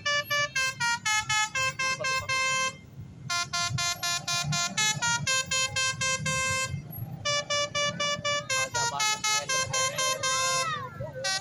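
Telolet bus horn (basuri multi-note horn) playing a fast melody of short, staccato notes in three phrases, with brief pauses about 3 and 7 seconds in, over a low rumble.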